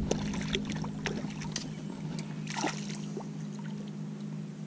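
Steady low hum of a bow-mounted electric trolling motor, with scattered light clicks and a brief rustle about two and a half seconds in.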